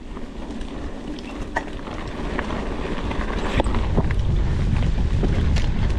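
Mountain bike riding down a dirt trail: wind on the action camera's microphone and tyre rumble building as the bike gains speed, with a few sharp knocks and rattles from the bike.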